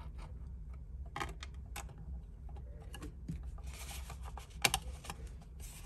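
Small scattered clicks, taps and brief rustles of hands handling a cardstock paper box and a plastic glue bottle while gluing, with one sharper click late on, over a low steady hum.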